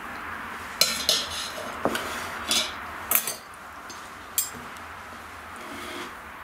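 Knife and fork clinking against a ceramic plate, several sharp clinks over the first four and a half seconds.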